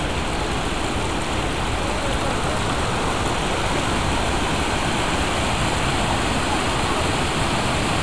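Steady rush of a waterfall and creek water cascading over rocks.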